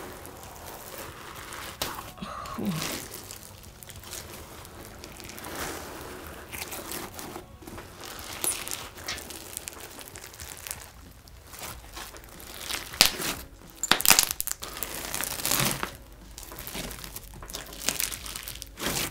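Bingsu-bead slime being kneaded and squeezed by hand, giving an irregular crunchy crackling, loudest around 13 to 16 seconds in. The slime is jam-packed with the beads.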